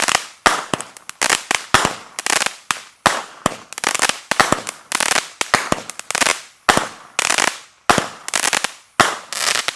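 Wildcard 200-gram consumer fireworks cake firing its last shots: a rapid run of sharp reports, about two to three a second, each trailed by a spray of smaller pops, stopping abruptly near the end.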